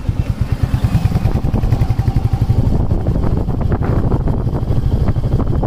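Low, pulsing rumble of a moving vehicle's engine, mixed with wind buffeting the microphone.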